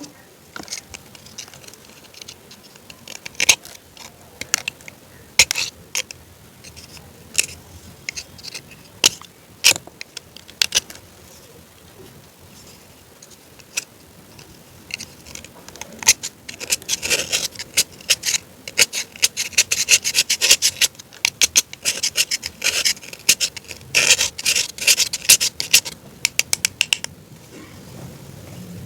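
Close crackling, crunching and scratching sounds in quick clusters: scattered at first, then dense runs of sharp crackles about halfway through and again near the end.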